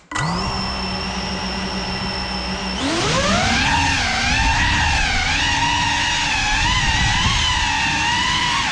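GEPRC Cinelog35 cinewhoop drone's brushless motors start suddenly and spin at a steady idle whine. About three seconds in the pitch rises as the throttle comes up, then wavers up and down with the throttle as it flies.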